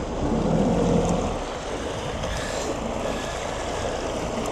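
Ski boat running on the water, its engine rumble mixed with rushing wind and water noise; the low rumble drops away about a second and a half in.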